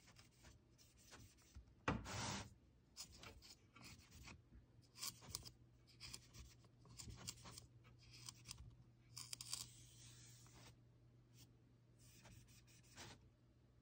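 Faint handling of a laser printer toner cartridge while its drum is wiped: scattered plastic clicks and scrapes, a few stretches of rubbing, and a louder knock about two seconds in. A faint steady hum sits underneath.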